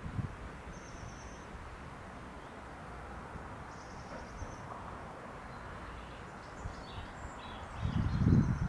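Wind blowing through grass, with low gusts buffeting the microphone that grow strongest near the end. A few faint bird chirps come through now and then.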